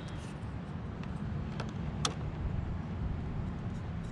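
A few light clicks and knocks of the old car speaker being worked loose from its mount by hand, over a steady low rumble.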